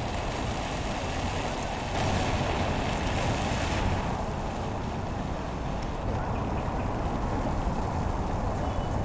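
City street ambience with road traffic running steadily. A vehicle passes louder about two to four seconds in.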